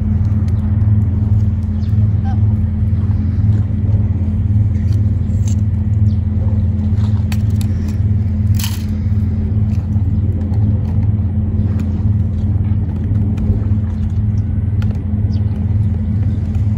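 Steady low rumbling drone, like a large engine or machinery running, with a few faint clicks and taps over it.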